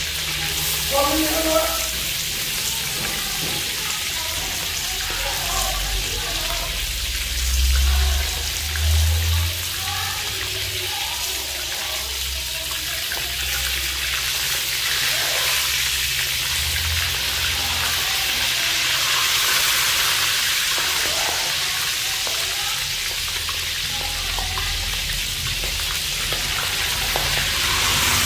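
A whole frog frying in hot oil in a wok, giving a steady sizzling hiss, while a metal ladle turns it in the pan. Two low thumps stand out about eight and nine seconds in.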